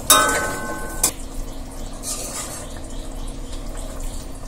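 A metal spatula knocks against an aluminium kadai right at the start with a short metallic ring lasting about a second. Then a thin fish curry simmers and bubbles in the pan, with small clicks and splashes as pieces go in.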